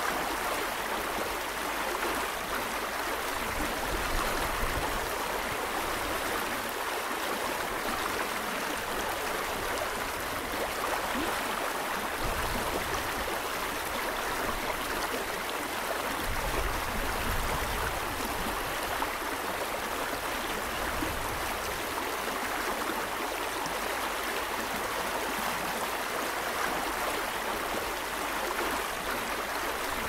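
Steady rush of running river water, with a few soft low rumbles beneath it.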